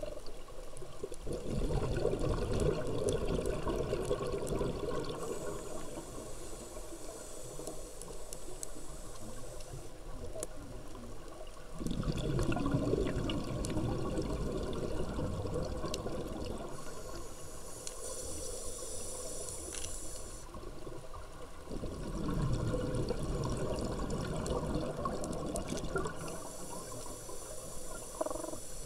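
Scuba diver breathing through a regulator underwater: three slow breaths, each an exhale of bubbles followed by a hissing inhale, about ten seconds per breath.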